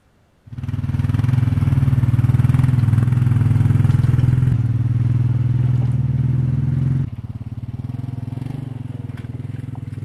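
Small tractor engine running at a steady speed, getting quieter about seven seconds in as the tractor moves away.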